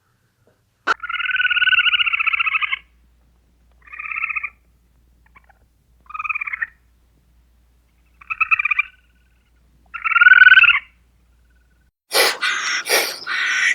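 An animal calling five times with a quavering, buzzy tone: the first call lasts about two seconds, the rest are short. Near the end, harsher, noisier calls begin.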